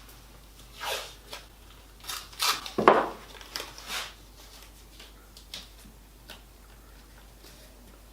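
Wooden box parts being handled and fitted by hand: a series of short scrapes and knocks, loudest about three seconds in, then a few faint ticks.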